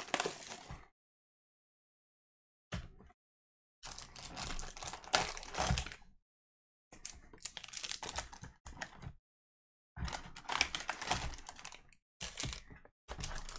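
Foil-wrapped trading card packs and a cardboard card box being handled: rustling and clicking in about six bursts of a second or two, with complete silence between them.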